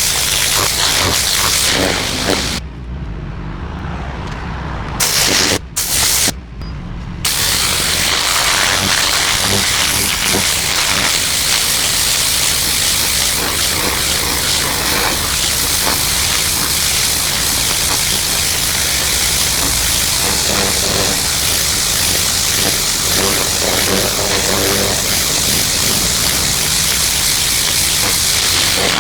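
Pressure washer jet spraying onto concrete steps, a loud steady hiss over the machine's running hum. The spray cuts out between about three and seven seconds in, stopping and starting a few times while the hum carries on, then runs steadily again.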